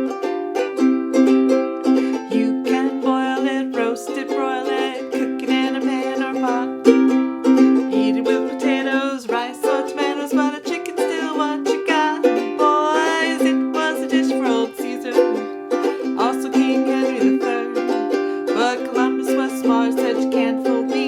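Ukulele strummed in a steady rhythm through the chords of a swing tune. Over it, for much of the first half, runs a wavering melody line.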